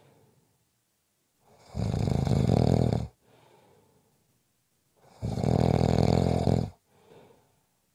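Snoring in a slow, even rhythm: two loud snores, each about a second and a half long and about three and a half seconds apart, each followed by a much fainter breath sound.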